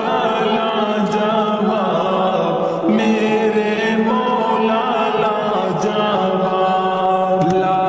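Devotional naat sung in a slowed-down, heavily reverberant mix: drawn-out sung notes that bend up and down over a steady low drone.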